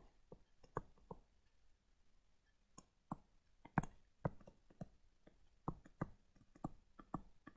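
Faint, irregular clicks and taps of a stylus on a tablet while words are handwritten, with a pause of about a second and a half after the first second.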